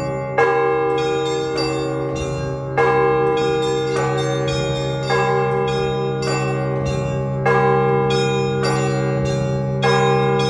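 Russian Orthodox church bells rung as a peal at the end of a service: a large bell strikes five times, about every two and a half seconds, over a steady low hum, while smaller bells ring quick patterns between its strokes.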